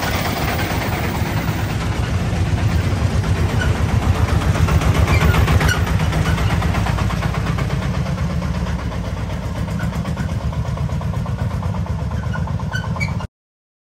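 Diesel engines of loaded công nông three-wheeled dump trucks chugging as they drive past close by, loudest about halfway through and easing a little as they move off down the lane. The sound cuts off abruptly near the end.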